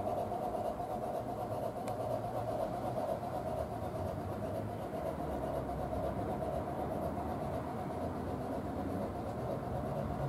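Bachmann G-scale Climax model locomotive running with its Soundtraxx Tsunami sound decoder playing a steady working sound, along with the rumble of the train's wheels rolling on the rails. One faint click sounds about two seconds in.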